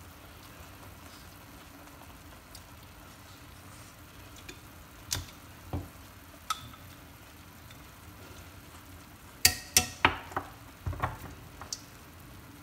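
Pot of fish and mustard-green soup cooking on the hob, a faint steady bubbling hiss with a few scattered pops. About three-quarters of the way through comes a quick run of louder sharp clicks and clinks with a short ring, the loudest sounds here.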